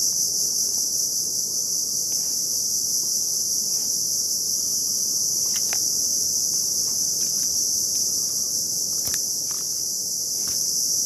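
Steady, shrill insect chorus droning without a break, with a few faint clicks near the middle and end.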